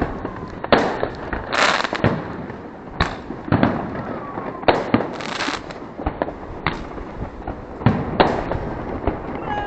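New Year fireworks going off: sharp bangs every second or so, with two longer crackling bursts and a few falling whistles.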